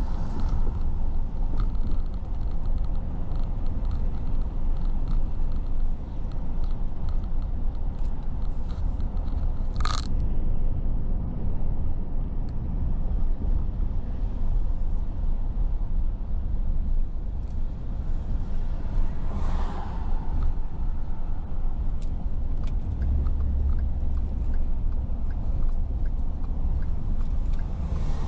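Steady low rumble of a car driving: road and engine noise, with one sharp click about ten seconds in and a brief swell of noise just before twenty seconds.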